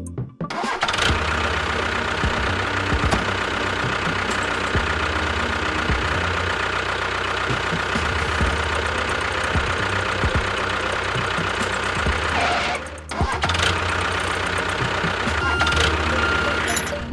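A small motor or engine running steadily, starting abruptly just after the beginning, with a short break about 13 seconds in.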